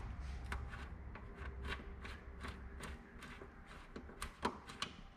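Hand rivet-nut tool being unscrewed from a freshly set steel insert in a sheet-metal body panel: a string of irregular light metallic clicks and scrapes as its threaded mandrel backs out.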